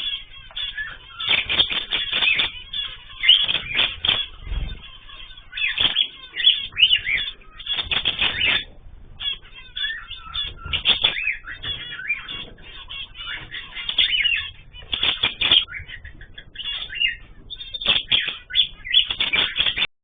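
A flock of small ornamental cage birds chirping and calling busily, many short overlapping calls and pitch sweeps with only brief pauses.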